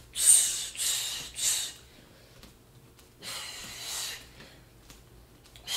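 A woman's sharp, hissing exhales with each hook punch while shadowboxing: three quick ones in the first second and a half, then a longer breath about three seconds in.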